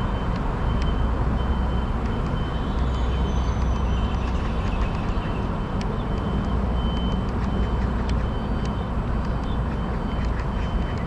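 Steady low rumble of outdoor background noise.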